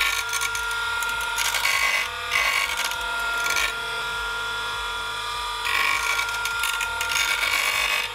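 Planer-knife sharpening machine running with a steady motor whine while a planer knife is drawn across its grinding wheel. The grinding gives a hissing rasp in three passes, and it fades for about two seconds in the middle between passes.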